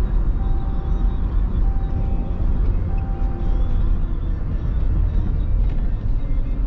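Vehicle engine running with a steady low rumble, with a repeating electronic beep sounding four times before stopping about four seconds in.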